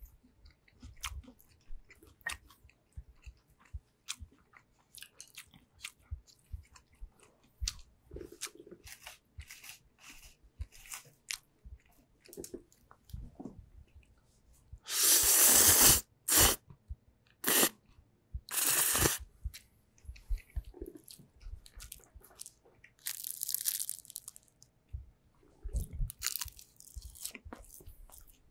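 Eating sounds picked up by a handheld microphone held right at the mouth: chewing with many small wet mouth clicks, and loud noodle slurps of spicy bibim-myeon about halfway through and again a few seconds later.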